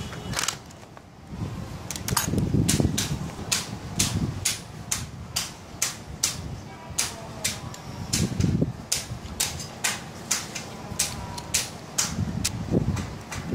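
Socket ratchet clicking in an even run of sharp clicks, two or three a second, as the carburettor mounting nuts on the CD-70 intake are tightened by hand, with dull handling knocks now and then.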